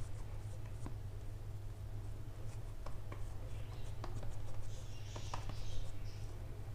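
Hands pressing and patting a mashed-potato kabab mixture into a patty: faint soft squishing and rubbing with a few small clicks, busiest in the second half, over a low steady hum.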